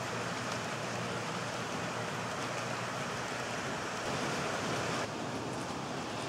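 HO-scale model freight train of tank cars rolling past on the track: a steady rushing of small wheels on rail with a few faint ticks. The sound changes abruptly about five seconds in.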